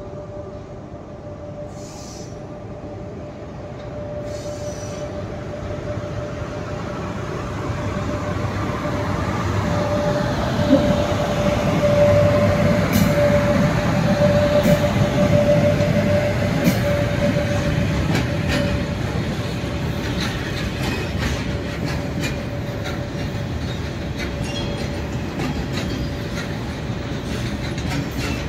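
Freight train passing on the rails. Its rumble builds over the first dozen seconds and then holds. A steady high-pitched squeal runs through it, and wheels click over rail joints in the later part.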